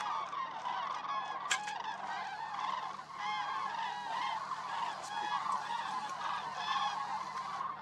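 A flock of common cranes (Grus grus) calling in flight: many overlapping honking calls form a continuous chorus. A single sharp click sounds about one and a half seconds in.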